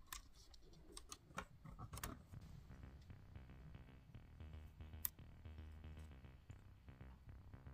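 Plastic building-kit pieces clicking as they are pressed and snapped together: several sharp clicks in the first two seconds and one more about five seconds in. Faint background music underneath.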